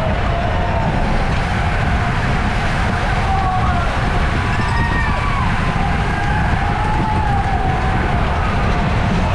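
Wind buffeting the microphone of a camera on a racing bicycle as a steady low rumble, with scattered drawn-out wavering calls gliding up and down over it.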